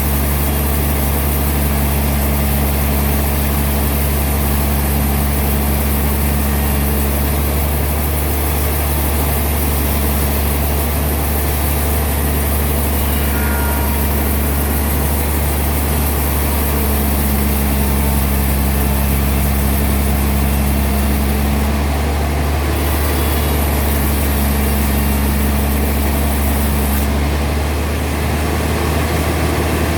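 Sawmill machinery running steadily with a constant low, droning hum.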